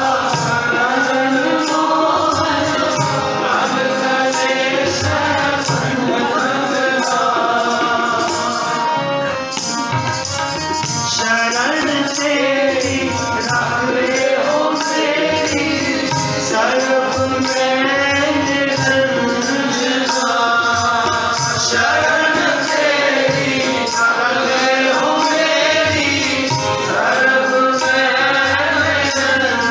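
Sikh gurbani kirtan: voices singing a shabad to harmonium, with tabla drums keeping the rhythm.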